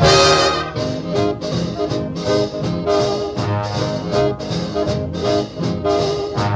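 Big-band swing music with brass. A new piece starts suddenly on a loud opening chord and runs on with a steady beat.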